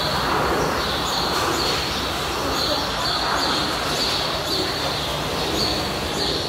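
Indistinct chatter of a crowd of zoo visitors, no single voice standing out, with a short high chirp repeating about twice a second.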